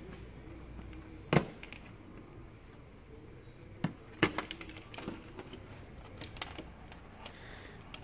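Small plastic wire-harness connector being worked loose from a TV main board by hand: a sharp click about a second in, then a few more clicks and light rattles of plastic and wire.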